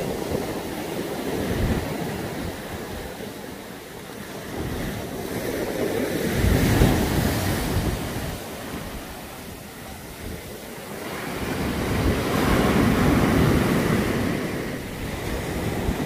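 Rough sea surf breaking and washing up a sandy beach among rocks, the roar swelling and fading with each wave about every five to six seconds, with wind buffeting the microphone.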